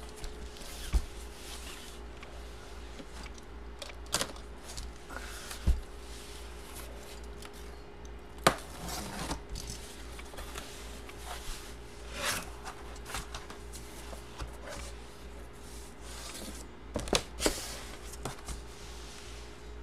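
Large cardboard box and sheets being handled: slid, rubbed and set down, with scattered knocks and brief scraping, over a steady low hum.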